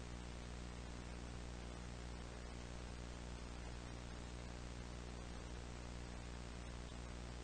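Steady hiss with a low buzzing hum under it: the tape noise of a simulated VHS playback filter, with nothing else over it.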